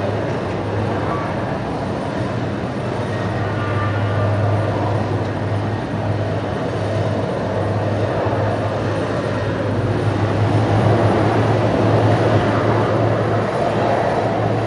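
Airport tarmac ambience: a steady rush of jet aircraft engines with a low hum and faint whining tones.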